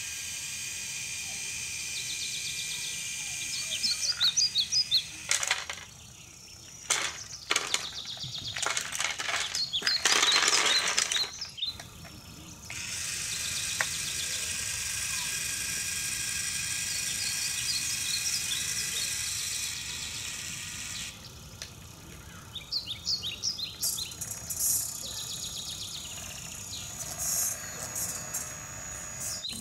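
Siku Control radio-controlled tipper truck unloading: its small electric tipping motor whirring steadily as the trailer rises and lowers, and the load of toy rubble clattering and sliding out into the bunker in a rush about a third of the way in, with a few pieces tumbling loose.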